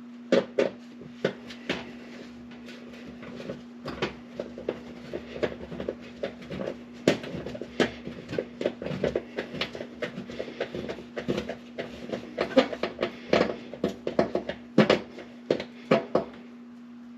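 Irregular sharp clicks and taps of hands working small metal parts: wire spade connectors being pushed and fiddled onto the terminals of a new oven heating element. A steady low hum sits underneath.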